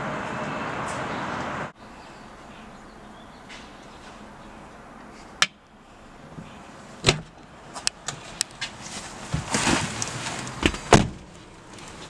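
Car door being forced with a slim jim: one sharp click about five seconds in, then a run of clicks, knocks and rattles from the lock and door. Before that, steady background noise cuts off abruptly about two seconds in.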